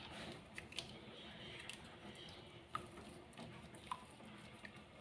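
Small plastic seasoning sachets crinkling faintly as they are squeezed out by hand, with a few sharper clicks of the plastic. The three loudest come about a second in, near three seconds and near four seconds.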